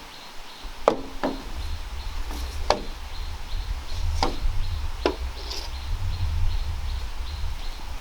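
Five sharp chopping strikes on bamboo, irregularly spaced a second or so apart. A faint high ticking repeats in the background.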